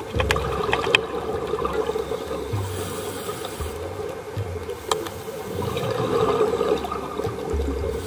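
Bubbling, gurgling water heard underwater, swelling about six seconds in, with a few sharp clicks, about one second in and again near the middle.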